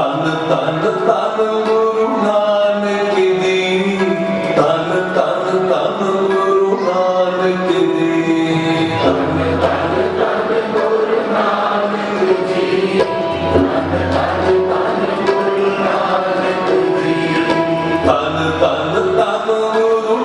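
Sikh kirtan: male voices singing a devotional hymn over two harmoniums and tabla. Low bass notes come and go in the second half.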